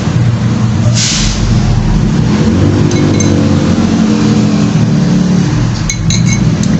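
A metal spoon clinks against a glass soup bowl a few times, with a short slurp of soup about a second in, over a loud steady low hum.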